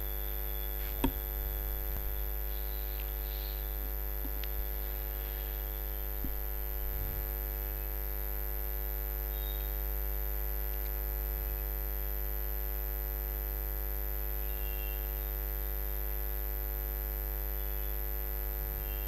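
Steady electrical mains hum with a stack of even overtones, picked up by the recording chain. It holds an even level throughout, broken by a single sharp click about a second in.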